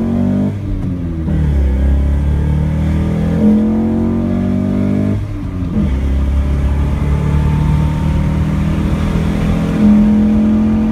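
Nissan Sentra SE-R Spec V's 2.5 L four-cylinder engine, fitted with an aftermarket intake, accelerating under load, heard from inside the cabin. The pitch climbs and drops back at gear changes, most clearly about five and a half seconds in. The induction sound carries the intake butterfly valves, which can be heard only with an aftermarket intake and not with the stock air box.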